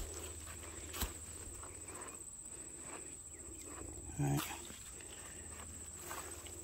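A single short, pitched call about four seconds in, like one bark, over a faint outdoor background with a sharp click about a second in.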